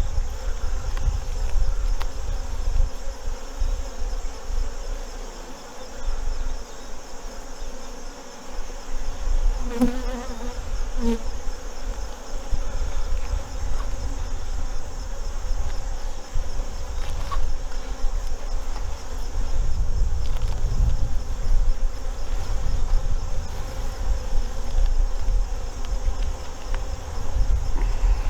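Honeybees buzzing around an open beehive, a steady hum with a low rumble underneath. A brief louder buzz about ten seconds in.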